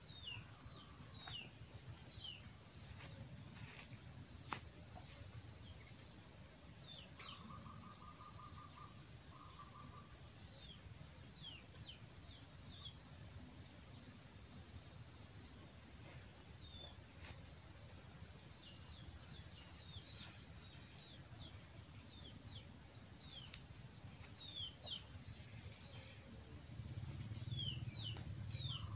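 Outdoor ambience: a steady high-pitched drone of insects over a low rumble, with many short falling bird chirps and a brief rapid trill about seven seconds in.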